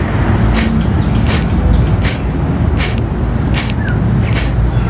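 Kapalabhati breathing: six short, forceful exhalations through the nose, evenly spaced at about one every three-quarters of a second, with no sound on the passive inhales. A steady low rumble runs underneath.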